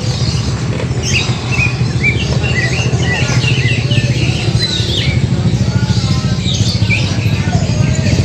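Small birds chirping in many short, quick calls over a steady low hum.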